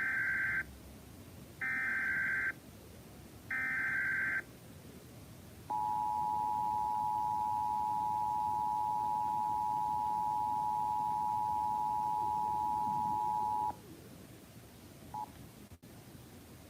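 Emergency Alert System SAME header: three short bursts of screeching data tones, each about a second long. They are followed by the steady two-tone EAS attention signal, held for about eight seconds before cutting off.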